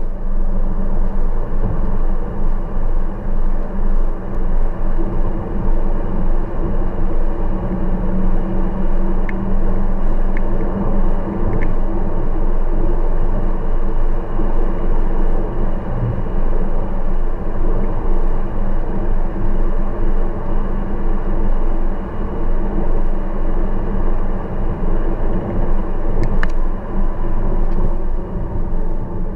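A car driving steadily along a road: continuous engine hum and tyre and road rumble, with a few light ticks.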